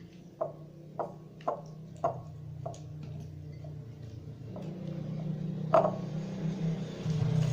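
Partly activated glue slime being kneaded and pulled apart by hand, still sticking to the fingers, giving short sticky pops about twice a second, with one louder pop near six seconds. A low rumble builds near the end.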